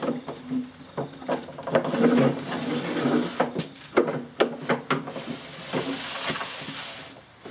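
A bolt-action rifle being handled: a run of irregular sharp clicks and knocks, the loudest about two and four seconds in.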